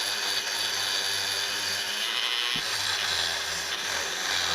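Small power tool scouring crusty old deposit off the metal coolant pipe outlets of a Honda Fireblade engine, so the new hoses will seal. A steady rasping hiss runs over a low motor hum.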